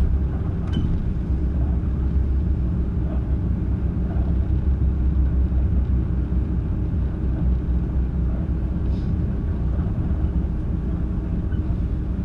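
Mitsubishi Fuso Aero Midi (PA-MK27FH) city bus under way, heard from inside the passenger cabin: a steady diesel engine and road rumble, with a few faint clicks.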